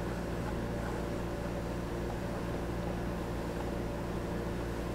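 Steady low electrical or mechanical hum with a faint hiss, unchanging throughout: workshop background hum. Nothing else stands out above it.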